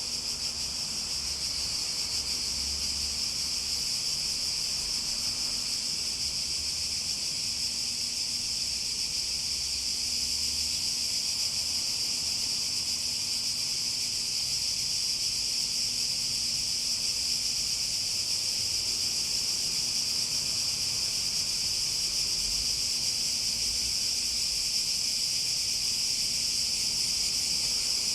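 Chorus of cicadas buzzing in a steady, unbroken high-pitched drone that grows slightly louder toward the end.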